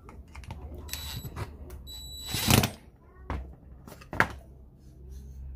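Workshop handling noises from wood and tools: scattered clicks and knocks, one louder brief scraping noise about two and a half seconds in, and sharp knocks a little after three and four seconds.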